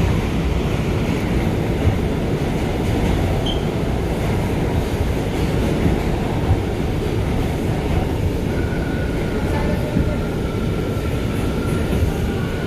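R179 subway car running at speed through the tunnel, heard from inside the car: a loud, steady rumble of wheels on rail with a few sharp clicks. A faint high whine comes in about two-thirds of the way through.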